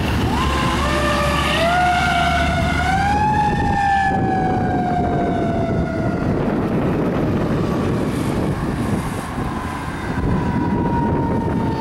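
Fire engine's Federal Signal Q2B mechanical siren winding up to a rising whine over about three seconds, then coasting slowly down in pitch, over the rumble of the truck and traffic.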